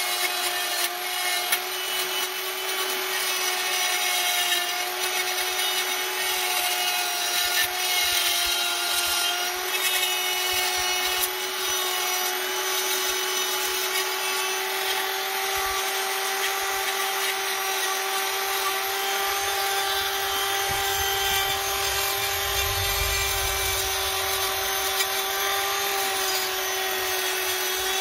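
Handheld rotary tool spinning a wire brush against a steel chassis, scrubbing off rust: a steady motor whine with a scratchy rasp of bristles on metal.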